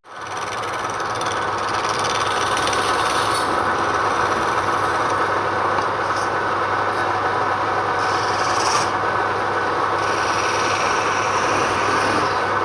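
Wood turning on a lathe: a steady scraping rub of a tool or abrasive against the spinning wood over a low, steady motor hum. It starts abruptly.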